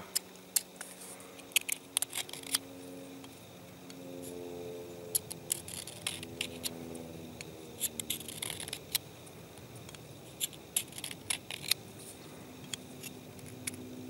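Steel edge of a Frost 162 hook knife drawn in short strokes over a Victorinox Dual Sharpener while the other side of the edge is sharpened. It makes a string of irregular sharp metallic scrapes and clicks.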